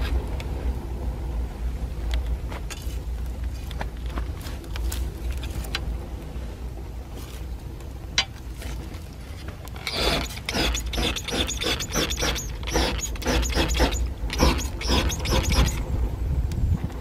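Damp wood fire crackling in a steam boiler's firebox over a low steady rumble, with scattered snaps at first. From about ten seconds in comes a dense run of rapid crackling and hissing while a hand spray bottle squirts liquid onto the flames.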